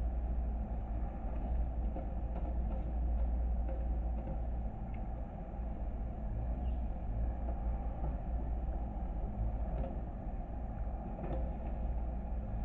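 Skid steer loader's engine running steadily, a continuous low rumble with a few faint clicks and knocks over it.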